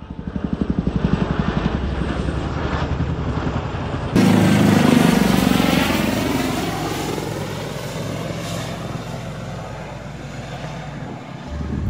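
Helicopter rotors beating in a fast steady chop. About four seconds in, the sound cuts abruptly to a louder aircraft pass with a sweeping whoosh that slowly fades.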